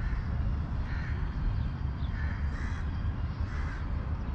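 Crows cawing, about four short calls spread through a few seconds, over a steady low rumble.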